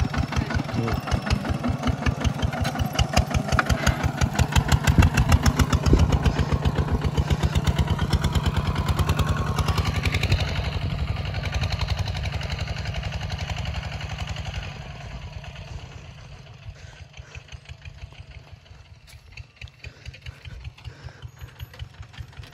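Kubota ZT140 single-cylinder diesel engine of a two-wheel walking tractor chugging steadily under load as it pulls a plow through the soil. It is loud and close at first, then fades over the second half as the tractor moves away.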